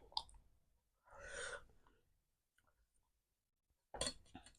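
A person sighs out a breath, a reaction to eating very spicy food, with a few soft mouth or utensil clicks near the start and again near the end.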